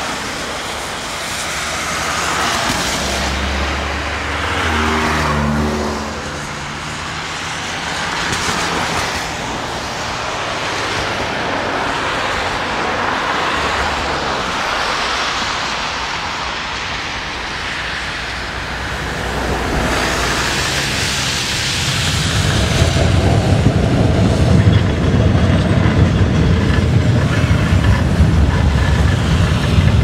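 Road traffic on a wet road: cars passing one after another with swelling and fading tyre hiss. About two-thirds of the way in, a louder low rumble takes over as an MBTA Red Line subway train runs alongside the road.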